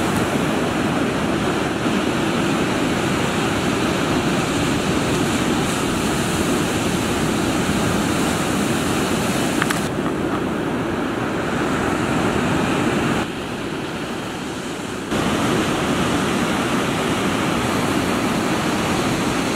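Ocean surf breaking on the beach, a steady rushing noise; it drops a little quieter for about two seconds past the middle, then comes back.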